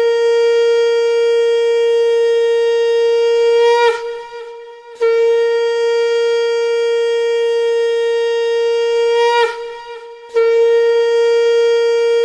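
Conch shell (shankha) blown in three long blasts of one steady held note, each about four to five seconds, breaking off with a slight drop in pitch before a short pause. It is the ritual conch call of a Hindu puja.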